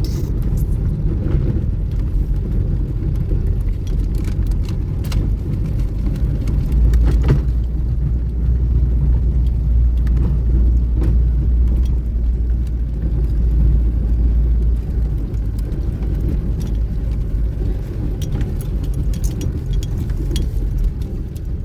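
Car driving along a mountain road: a steady low rumble of engine and road noise, heavier for several seconds in the middle, with scattered knocks and rattles.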